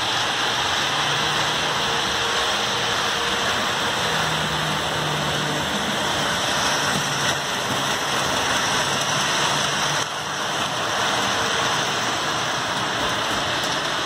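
HO scale model trains running: a steady rushing noise of wheels rolling on the track, with a faint low motor hum that comes and goes.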